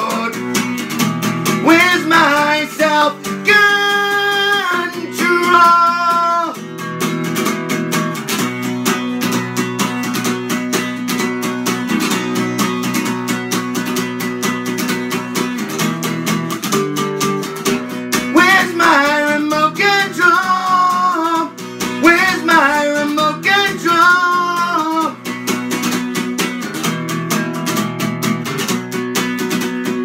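Acoustic guitar strummed in a fast, steady rhythm, with a man singing over it for about the first six seconds and again from about 18 to 25 seconds.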